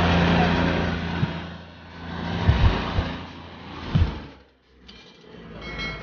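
Motors of a homemade toy tractor and toy combine harvester running under load as they strain against each other on a chain in sand. It is a steady motor hum, loudest in the first second and then rising and falling, with a few low thumps in the middle.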